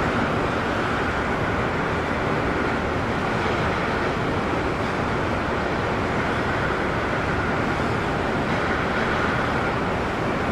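Steady, even background noise with no speech, like road or traffic noise. It starts abruptly out of dead silence and holds level throughout.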